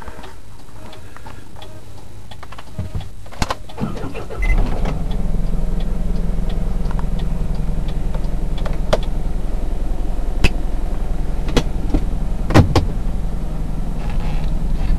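A few clicks and knocks, then about four and a half seconds in a truck engine starts and settles into a steady low idle, with a few sharp clicks over it.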